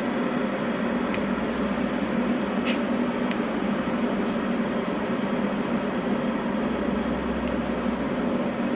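Steady mechanical hum of a kitchen appliance or fan, with a few faint ticks as a serrated bread knife saws through a loaf of banana bread.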